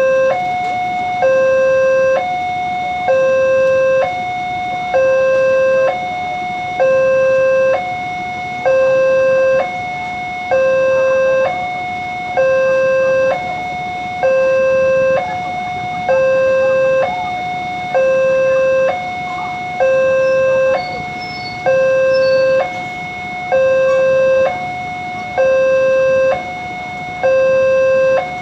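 Indonesian railway level-crossing alarm sounding its electronic two-tone warning, a lower and a higher tone alternating about once a second, the signal that a train is approaching and the barriers are down.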